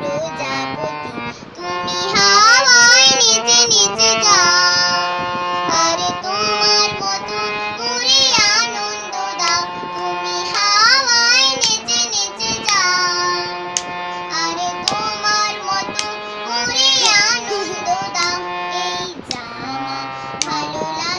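A young girl singing a song with ornamented, sliding melody lines while she accompanies herself on a harmonium, its reeds holding steady tones under her voice.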